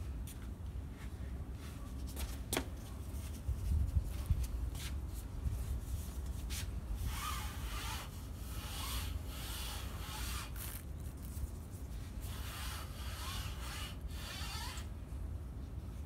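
A cloth wiping a screen door, rubbing in runs of scraping strokes through the second half, with a single sharp click about two and a half seconds in. A low rumble runs underneath.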